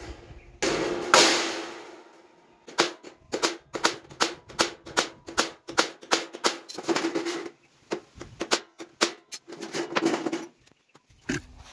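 Claw hammer tapping a thin galvanized plain sheet to raise a design in it: a quick run of light metallic strikes, each with a brief ring at the same pitch. A louder blow about a second in rings out longer, and the tapping stops shortly before the end.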